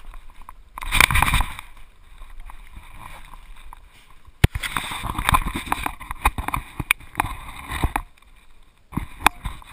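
Rustling and rubbing noise from a GoPro mounted on a dog's back as the dog moves, with a loud burst about a second in and sharp clicks scattered through, the sharpest about halfway.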